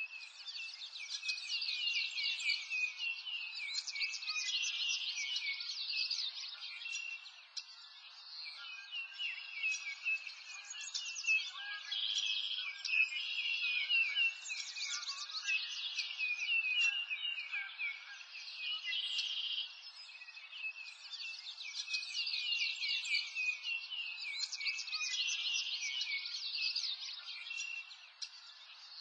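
A dense chorus of many small birds chirping and singing at once, with a brief lull about seven seconds in.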